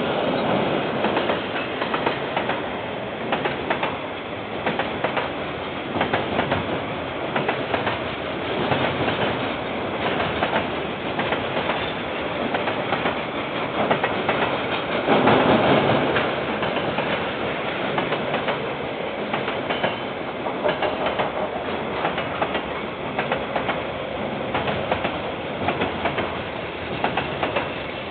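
KiwiRail train rolling past, its wagon wheels clacking rhythmically over the rail joints, loudest about halfway through. Heard through a security camera's microphone, which cuts off the higher sounds.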